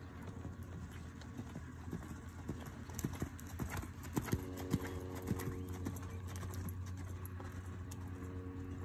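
A bay mare's hooves beating out a lope in arena sand, loudest a few seconds in as the horse passes close by.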